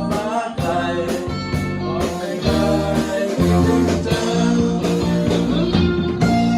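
A rock song with guitars over a steady drum beat.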